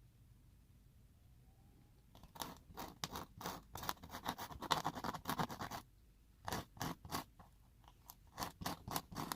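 Rapid scraping and scratching on wooden ice-cream sticks: a dense run of quick strokes starting about two seconds in and lasting some three and a half seconds, then two shorter bursts near the end.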